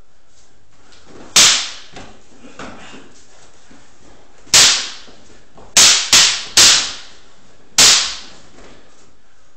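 Sharp clacks of practice swords striking in sparring: one hit about a second and a half in, another around four and a half seconds, a quick run of three close together near six seconds, and a last one near eight seconds.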